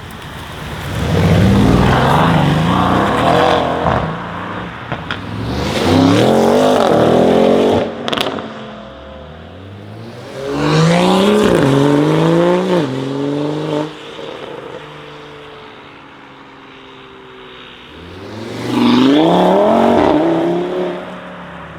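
Audi RS6 C8's twin-turbo V8, with catless downpipes and an OPF-delete exhaust, accelerating hard four times. The pitch climbs through the gears with short dips at each upshift and dies away between runs. There is one sharp pop just after the second run.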